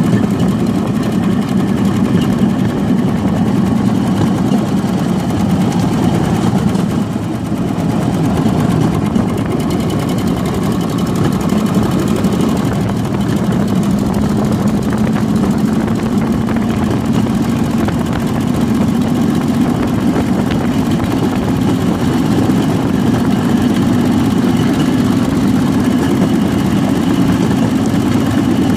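8 HP Briggs & Stratton single-cylinder engine running steadily under load, driving a homemade wooden rail kart along the rails through a belt drive. It eases briefly about seven seconds in, then its pitch climbs slowly over the second half as the kart speeds up.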